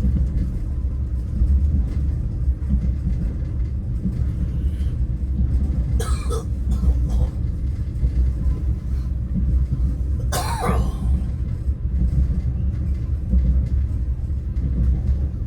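Steady low rumble of a moving train heard from inside the passenger carriage. Two short coughs break through, about six seconds in and again about ten seconds in.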